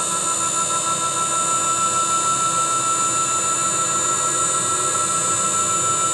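Quick CNC K6100A router running: a steady, high machine whine made of several fixed tones over a low rumble, as the spindle head travels slowly along the gantry.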